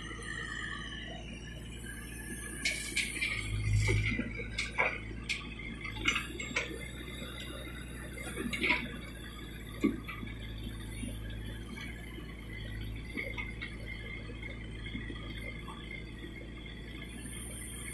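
Case 770 EX backhoe loader's diesel engine running steadily, with scattered knocks and clanks from the backhoe bucket as it digs soil and dumps it into a steel trolley. The loudest moment comes about four seconds in, with sharp single knocks around five, six and ten seconds.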